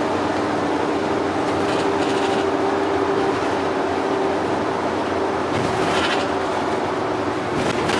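Double-decker bus heard from inside while driving: a steady running rumble with a low hum and a few brief rattles.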